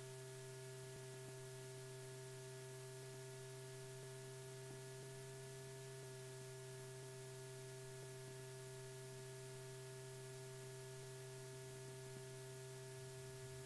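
Faint steady electrical hum with a light hiss, the recording's background noise with no other sound.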